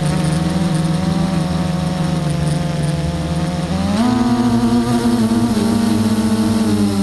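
A vehicle engine running steadily with a low hum, its pitch stepping up about four seconds in as the revs rise, then easing down again in steps.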